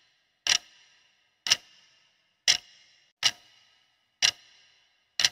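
Countdown-timer clock ticking, one sharp tick about every second, each with a short ringing tail; six ticks in all.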